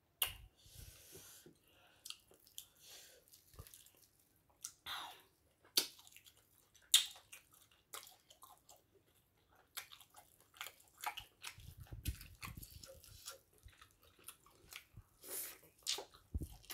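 Close-miked mouth sounds of eating potato fufu with egusi soup: irregular wet chewing, lip smacks and clicks, with a few low thuds in the second half.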